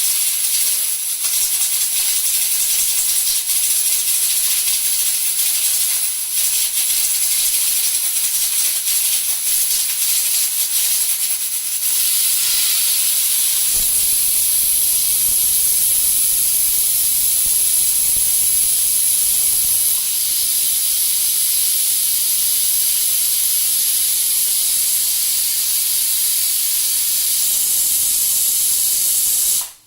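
Two Prestige pressure cookers whistling, steam jetting from their vents in a loud, high-pitched hiss. For about the first twelve seconds the hiss sputters and rattles, then it settles into a steadier hissing whistle. It cuts off abruptly just before the end.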